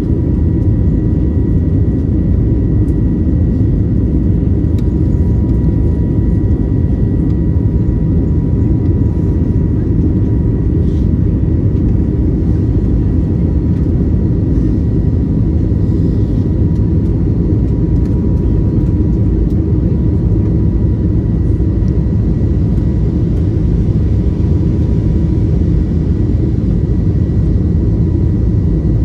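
Steady engine and airflow noise of an Airbus A320neo with CFM LEAP-1A engines, heard inside the passenger cabin: a deep, even rumble with a faint steady whine at two pitches.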